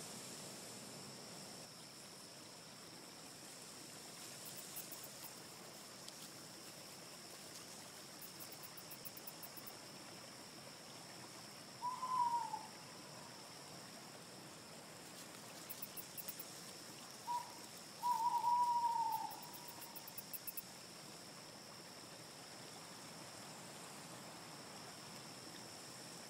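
Forest ambience with a steady hiss and faint high chirping that comes and goes. Over it a bird calls twice, several seconds apart: first a short falling note, then a brief note followed by a longer falling one.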